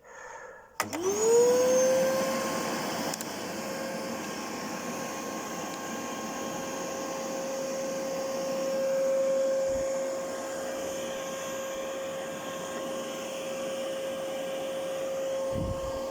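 Hoover vacuum cleaner switched on about a second in. Its motor whine rises quickly as it spins up, then runs steadily with a constant rush of air.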